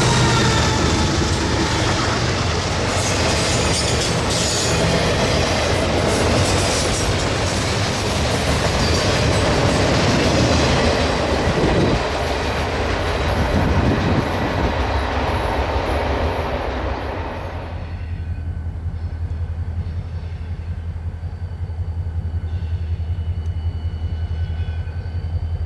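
Train rolling past with loud wheel-and-rail noise. About 18 seconds in the noise cuts off abruptly, leaving a steady low rumble.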